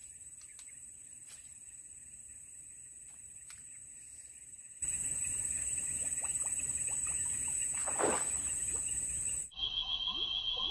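Insects shrilling in a steady, high, continuous chorus with faint scattered ticks. About five seconds in it suddenly gets louder and busier, with one brief louder rush about eight seconds in. Near the end it cuts abruptly to a lower-pitched steady buzz.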